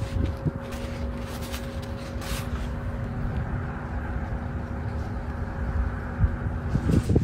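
A steady mechanical hum with a low rumble, its tone dropping out near the end. In the first couple of seconds, a few soft rustles and taps of a paper towel being rubbed over the bone of a raw chicken drumstick.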